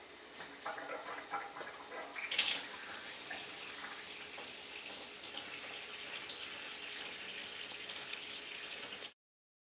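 Tap water running into a sink at a medium flow, flushing the cleaning solution out of a water ionizer; the flow swells sharply about two seconds in, then runs steadily before cutting off abruptly near the end.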